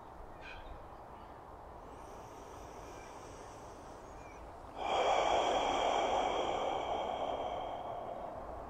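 A man's long, forceful breath out through the mouth. It starts suddenly about halfway through after a quiet stretch and tapers off slowly over several seconds, pushing all the air out.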